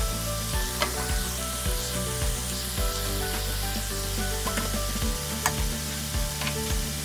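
Ground beef, onions and diced tomatoes sizzling steadily in a nonstick frying pan, with a few sharp clicks of a spatula against the pan.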